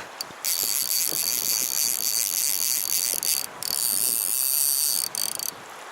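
Fly reel's click-and-pawl drag buzzing loudly as a hooked rainbow trout runs and pulls line off the reel; the fish takes line in two runs with a short pause between, then the reel stops shortly before the end.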